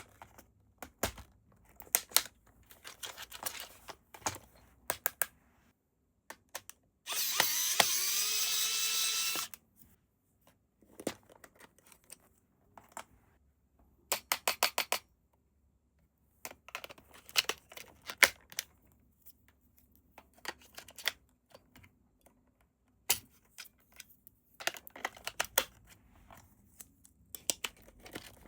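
Hard plastic clicking, tapping and snapping as toy parts and packaging are handled. About seven seconds in, a small electric motor whirs for about two and a half seconds, rising slightly in pitch as it spins up, then stops.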